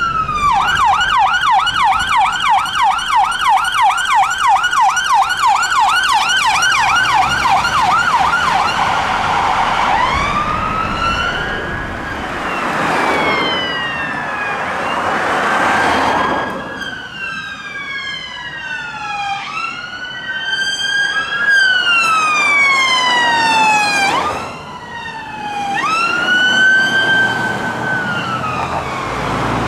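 Emergency vehicle sirens. A fast yelp runs at about three sweeps a second for the first ten seconds, then changes to slower rising-and-falling wails. In the second half two sirens overlap.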